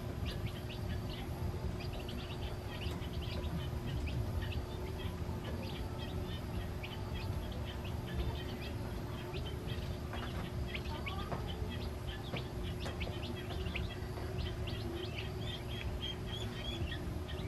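A group of newly hatched chicks peeping continuously, many short high cheeps overlapping, over a steady low rumble.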